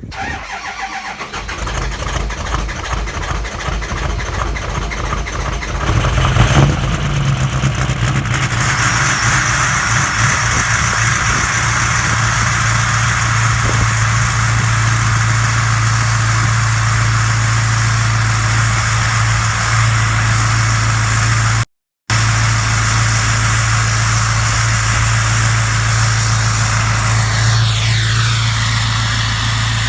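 Ford 6.0 Powerstroke V8 turbodiesel cold-starting at 17 degrees without its block heater plugged in: it catches and runs rough and rising, jumps in speed about six seconds in, then holds a steady fast cold idle under a loud, high turbo whistle. Near the end the whistle glides down in pitch, and the sound cuts out for a split second midway.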